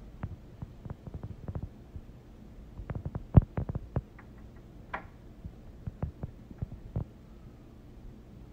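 Irregular light knocks and taps as plastic star cookie cutters are set into a tray of liquid wax, bumping against each other and the tray, with a cluster of knocks around three to four seconds in, the loudest of them about three and a half seconds in.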